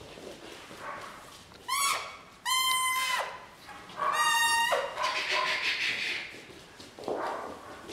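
Puppies at play: three high-pitched squeals, the first rising and the next two held at a steady pitch for about half a second or more each, followed by some scuffling.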